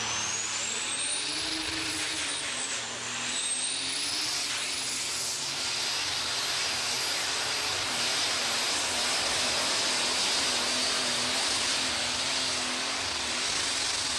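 Super Stock pulling tractor's turbocharged diesel engine running at full power as it drags the weight-transfer sled down the track. A high whine climbs in pitch over the first two seconds and then holds high over the loud, steady engine noise.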